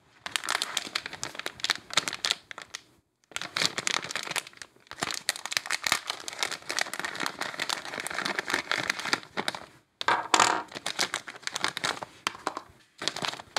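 Clear plastic packaging bag crinkling as it is handled and the pens inside are pulled out. The crinkling comes in three long stretches, with short pauses about three seconds in and again about ten seconds in.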